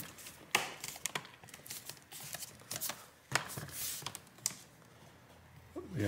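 Irregular clicks and taps of a Lenovo Yoga 2 13 laptop's bottom cover being pressed down by hand and clipped back onto the chassis, the loudest snap about three seconds in.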